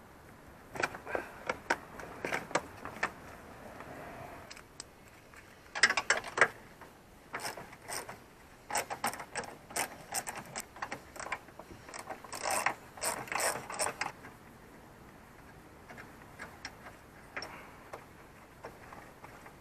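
Socket ratchet with a 10mm socket clicking in quick runs as battery nuts are turned, in three bursts over the first two-thirds, then only a few faint clicks.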